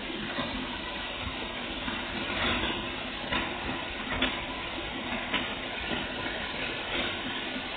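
Water spraying steadily from a newly installed shower head: an even hiss, with a few brief clicks here and there.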